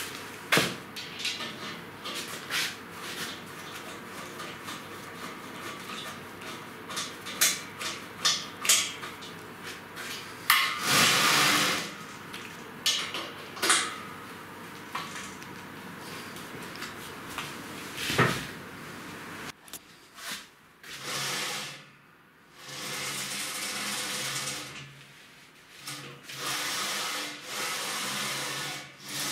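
Metal clicks and clinks of cap screws being fastened with a hex key into a linear guide rail on a welded steel-tube frame. In the second half comes a longer, steadier rolling noise, rising and falling, as the gantry's carriages are run along the linear rails.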